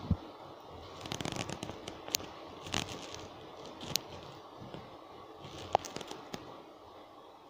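Irregular sharp clicks and crackles over a faint hiss: handling noise from a hand-held phone carried while walking.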